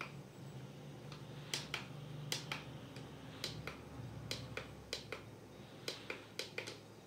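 Plastic mode button on a star-and-moon night-light projector being clicked over and over, the clicks often coming in quick pairs as it is pressed and released, switching the projector between its colour modes. A faint low hum runs underneath.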